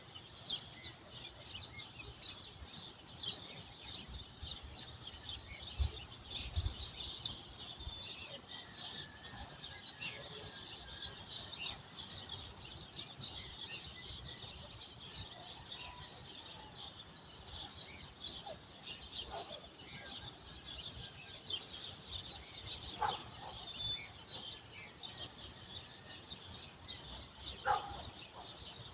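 Dawn chorus of many small birds chirping continuously and overlapping, with a few louder, clearer notes standing out about seven seconds in and again a little past the middle.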